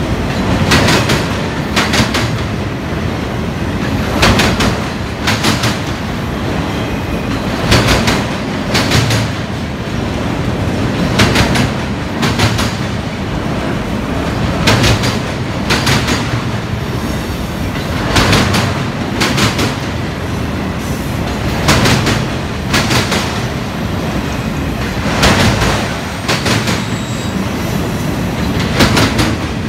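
Freight train of autorack cars rolling past with a steady rumble and a regular clickety-clack of steel wheels over rail joints. The clicks come in close pairs as each truck's axles cross, with the pattern repeating every few seconds as car after car goes by.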